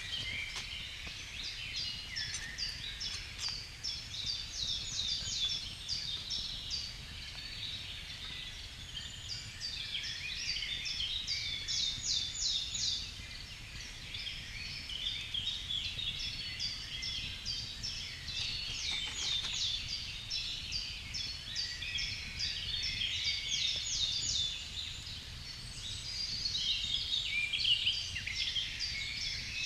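Songbirds chirping in a dense chorus: rapid trains of short, high, falling notes that go on with little break.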